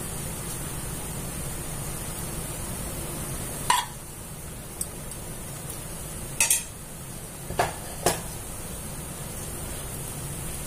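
Steel spoon scraping and knocking against a kadai while spreading chicken filling: several short sharp clicks, a few seconds apart. Underneath, a steady soft hiss of the layered pathiri frying on a low flame.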